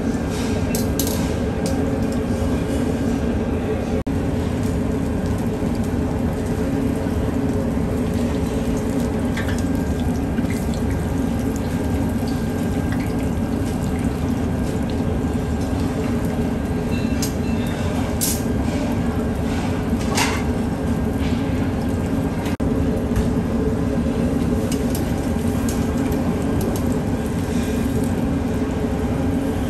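Steady commercial-kitchen noise at a food stall, with a few short clinks on top.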